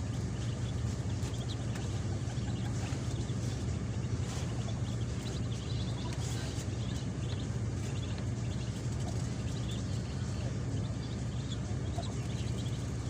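Pekin ducklings peeping: many short, high chirps scattered throughout, over a steady low hum.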